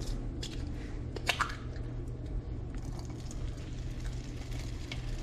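Butter bubbling and crackling in a hot pan, with scattered sharp pops over a steady low hum.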